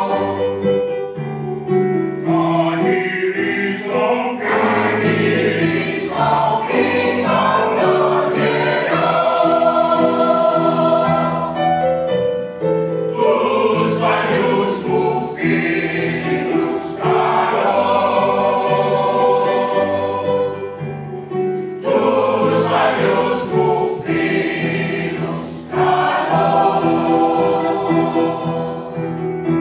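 Mixed choir of women and men singing a Greek song in harmony, with piano accompaniment, in long sustained phrases that break briefly between lines.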